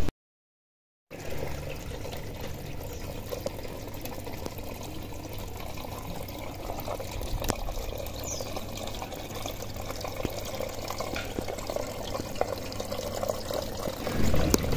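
Water running in a steady, even trickle, starting about a second in after a moment of dead silence.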